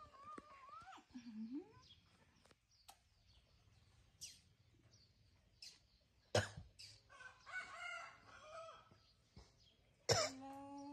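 Newborn baby monkey giving thin, wavering coos and squeaks. There is a sharp knock about six seconds in, and a sudden louder rising call near the end.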